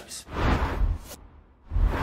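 Whoosh sound effects of a logo transition: a rushing swell that fades within about a second, then a second swell that rises near the end.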